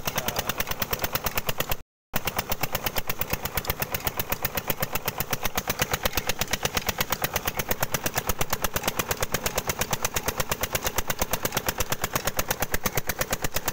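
Tube well's Peter diesel engine running steadily with a fast, even chugging, about ten beats a second, over water gushing from the outlet pipe.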